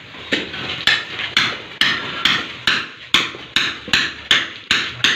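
Hand hammer striking old ceramic floor tiles to knock them loose, a sharp knock a little over twice a second.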